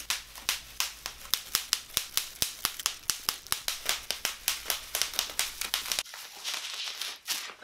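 Bubble wrap popped by hand: a quick, steady run of sharp pops, about five a second. About six seconds in, the sheet is twisted and wrung, giving a dense crackling that stops just before the end.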